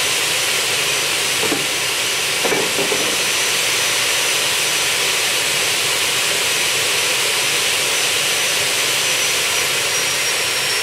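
The two carbide-tipped saw blades of a double-head aluminium cut-off saw spinning without cutting: a steady hiss with a thin high whine that dips slightly in pitch near the end.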